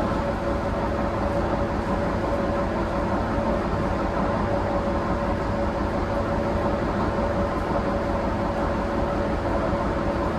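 Diesel railcar running, heard from inside the cabin: a steady engine drone and running noise with a constant hum through it.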